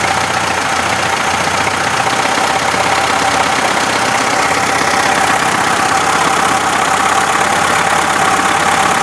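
VAZ Zhiguli inline-four engine running steadily at idle, with seven steel bearing balls loose in one cylinder knocking against the piston crown.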